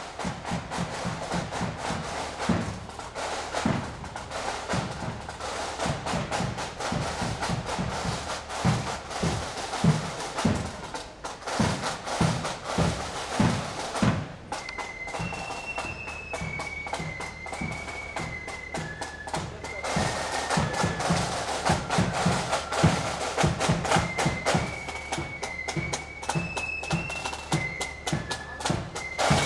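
Marching flute band on parade: the drums beat a steady march rhythm, and about halfway through the flutes come in on a high melody over them.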